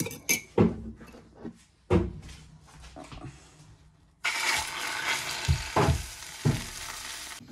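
A few knocks of kitchenware. Then, about four seconds in, a sudden steady sizzle of omelette egg frying in a hot pan starts, with a few more utensil knocks over it.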